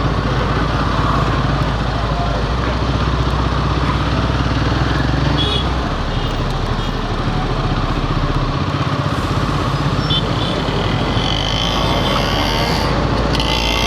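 Royal Enfield Himalayan 450's single-cylinder engine running steadily under way, with wind and road rush. A faint high thin tone joins near the end.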